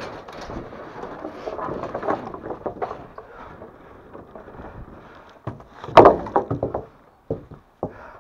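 Rustling and scraping as wood is handled, then a loud wooden clatter about six seconds in, followed by a quick run of smaller knocks and two more single knocks near the end.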